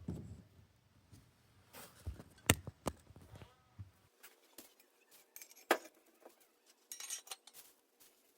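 Scattered metallic clinks, clicks and knocks of BMX bike parts and tools being handled during assembly. Two sharper knocks stand out, one a little over two seconds in and one near six seconds.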